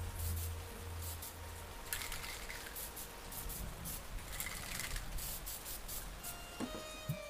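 Aerosol spray-paint can hissing in several short bursts as gold metallic paint is sprayed, with faint background music.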